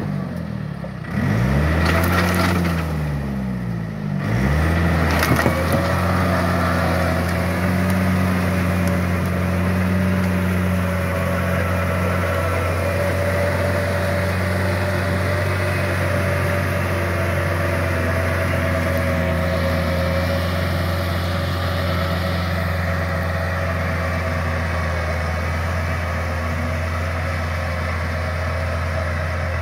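Diesel tractor engine running steadily as the tractor pulls a rotary tiller through a wet rice paddy. In the first few seconds its speed dips and recovers twice, then it holds one steady note.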